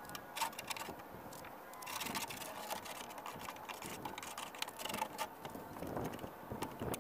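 Hand scraper scraping old paint off a bucket-truck bucket in short, irregular strokes, a series of scratchy rasps and clicks.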